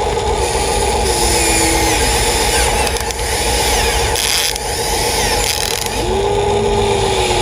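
Excavator working: a steady mechanical whine with a lower tone that sags and recovers twice as the machine takes load.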